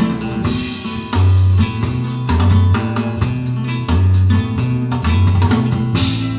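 Recorded guitar music with a deep bass line, played back through Dali Ikon 5 mk2 loudspeakers. Bass notes land about once a second under the plucked guitar notes.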